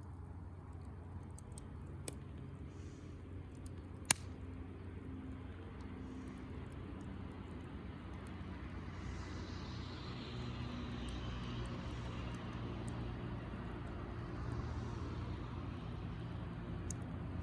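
Wood bonfire burning with a few sharp pops, over a steady low rumble that grows louder about halfway through.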